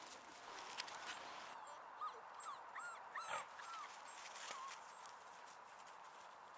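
Faint whimpering from a Groenendael puppy: a quick run of seven or eight short cries, each rising and falling in pitch, starting about two seconds in and fading by four and a half.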